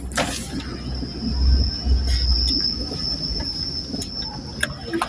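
A vehicle's low running rumble with a steady high-pitched squeal that sets in just after a brief sharp sound at the start.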